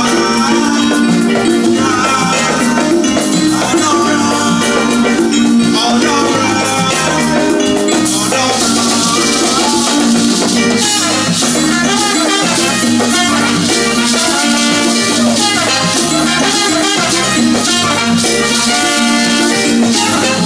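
Live highlife band playing instrumentally, with a pulsing bass line, drums and rattling shaker-like percussion; the high percussion grows busier about eight seconds in.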